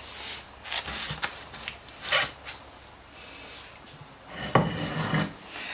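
A few scattered knocks and light clatter of a spatula and tongs against a toaster-oven tray and a plate as baked shawarma rolls are lifted out and set down.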